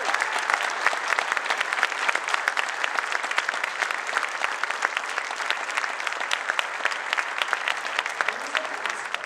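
A large audience applauding: dense, steady hand-clapping that breaks off suddenly at the end.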